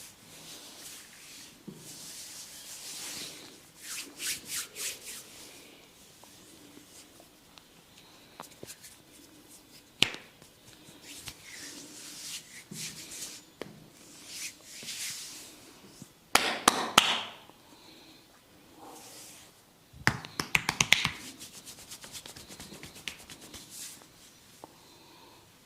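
Hands massaging skin: soft rubbing strokes broken by bursts of quick rapid tapping or slapping. There is a single sharp crack about ten seconds in, and the loudest flurries of strokes come near the middle and about three quarters of the way through.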